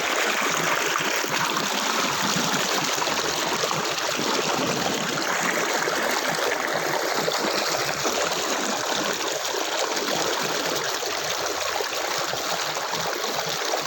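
Water from a small hill waterfall running and trickling over rocks in a steady rush. The fall is nearly dry, so only a thin flow is coming down.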